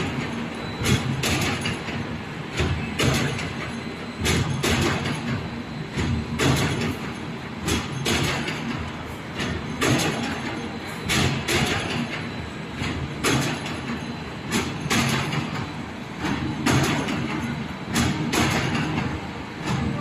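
Gabion hexagonal wire-mesh production line running: a steady mechanical din with irregular sharp metallic clanks and rattles, about one or two a second, as wire is drawn off the coils to the weaving machine.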